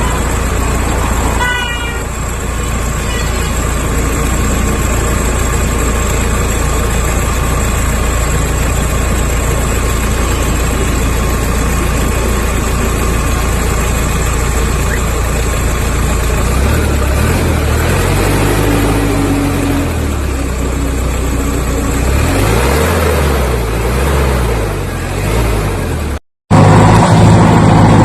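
A vehicle engine running steadily, its low note rising and falling in the latter part, then cutting abruptly to a louder engine sound near the end.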